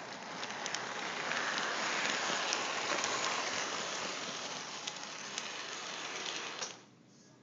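Lionel model train running past close by: a steady rolling rattle of wheels and motor on the track with scattered light clicks. It builds and then cuts off suddenly near the end as the train stops.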